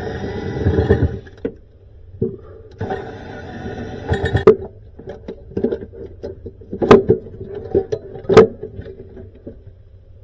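Cordless drill or power screwdriver run in two short bursts, driving screws during drawer-slide removal, followed by scattered clicks and knocks of parts being handled.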